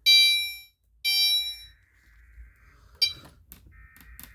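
Electronic fire alarm chime sounding a string of struck-bell-like tones, each fading out over about half a second, roughly one a second. Under them a faint steady beep runs for a couple of seconds, and a few sharp clicks come near the end.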